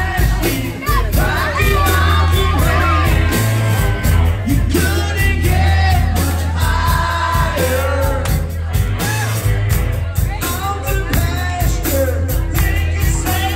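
Live rock band playing a cover with a lead vocal over heavy bass and a steady drum beat.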